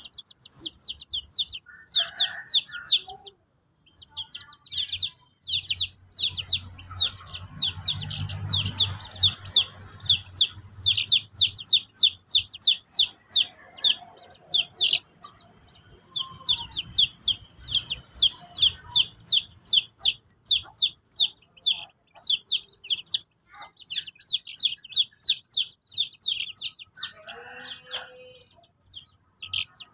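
Young chicks peeping almost without pause: a fast run of short, high, falling peeps, about four a second, with a few lower chicken calls among them.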